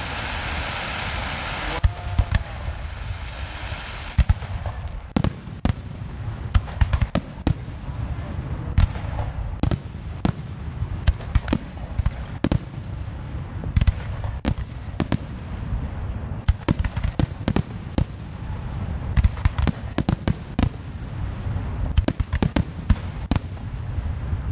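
Aerial fireworks display: shells bursting in a rapid, irregular string of sharp bangs, several a second at times, over a low rumble, starting about two seconds in.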